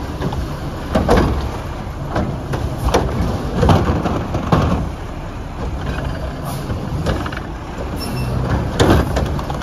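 Mack LR garbage truck with a Curotto-Can arm at work: the engine runs steadily under a string of irregular knocks and clanks from the arm and body handling carts.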